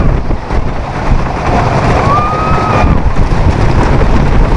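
Wind buffeting the microphone over the rumble of a wooden roller coaster train running on its track. A rider lets out one long high yell about two seconds in.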